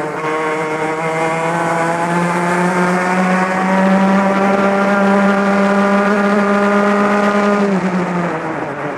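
Two-stroke racing kart engine heard onboard, running at high revs down a straight: its pitch climbs slowly over the first few seconds, holds steady, then falls away sharply near the end as the throttle comes off.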